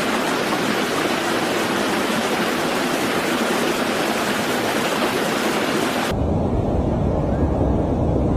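Steady loud hiss of heavy rain or rushing water. About six seconds in it cuts abruptly to a deep, low rumble.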